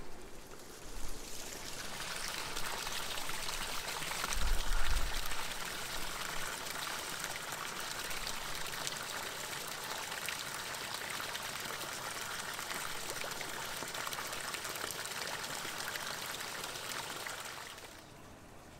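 Steady stream of water pouring or running, swelling in about a second in and stopping shortly before the end, with a low dull thump about four to five seconds in.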